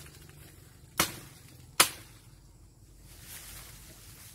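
Two sharp cracks of branch wood being chopped or broken, about a second apart, then a faint rustle.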